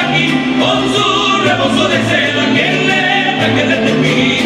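Mariachi band playing live: several men's voices singing together over violins, trumpets and guitars, with the guitarrón's bass stepping back and forth between two notes.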